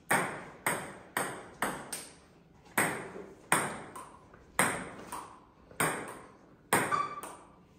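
Table tennis ball clicking off the paddles and the table during a rally: about a dozen sharp, short knocks at an uneven half-second to one-second pace, each with a brief ring of room echo.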